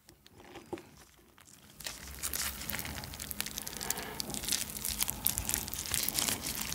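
Plastic disposable gloves crinkling as gloved hands pull a steamed meat dumpling apart, its soft wrapper tearing open. The crackly rustle starts about two seconds in and runs on densely.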